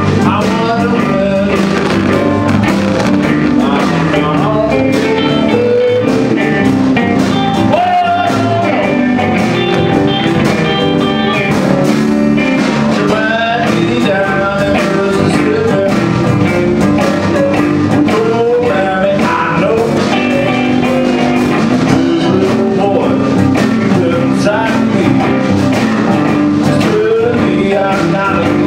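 Live blues band playing: electric guitars, keyboard, bass and drum kit.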